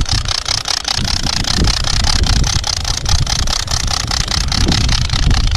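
Wind buffeting the microphone and water rushing past a kayak under way: a steady hiss over a low rumble, with a fast, even flutter.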